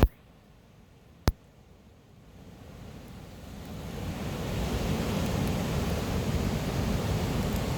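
Ocean surf and wind on the microphone, a steady rushing noise. It drops to near silence for about two seconds after a click at the start, with another click about a second in, then fades back up.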